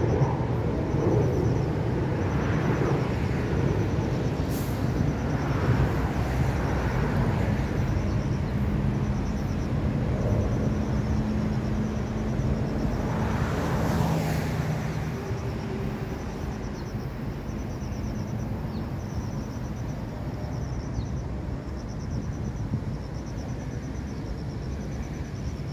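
Road traffic passing on a multi-lane road: a steady low rumble with cars swelling past every few seconds. A faint high chirping repeats throughout.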